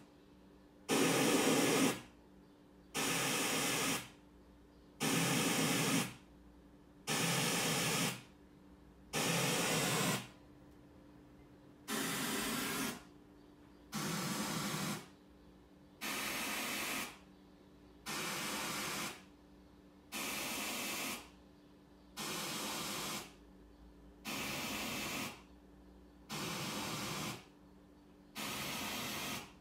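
Pioneer VSX-832 receiver's Full Auto MCACC calibration test signal played through the speakers: about fourteen bursts of hiss-like noise, each about a second long, repeating every two seconds. The bursts are a little quieter from about twelve seconds in, as the measurement moves to another speaker.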